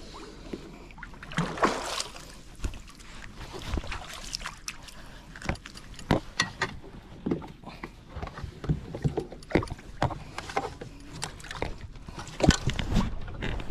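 Irregular knocks and clunks on a fishing kayak as its hull and gear are handled, coming every second or so and louder near the end.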